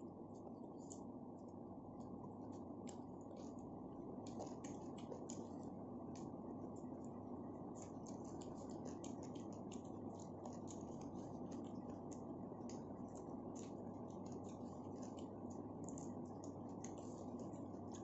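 Close-up eating sounds: many quick small clicks and smacks of chewing and of fingers working rice, over a steady low hum. The clicks grow busier from about four seconds in.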